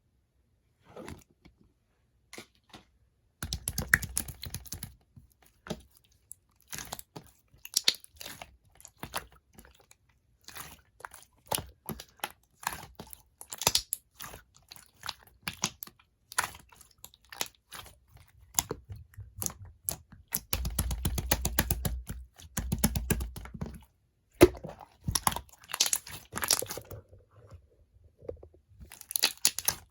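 Clear slime, made over from a failed ice slime, being squeezed and stretched by hand: irregular sharp crackles and clicking pops, with denser crackly squishing in stretches.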